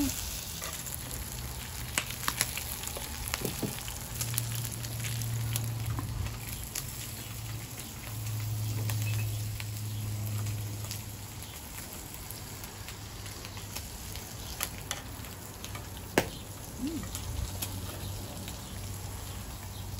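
Meat sizzling steadily on a round Korean barbecue grill pan over a portable gas stove, with a few sharp clicks of metal utensils against the pan. A low hum swells and fades underneath.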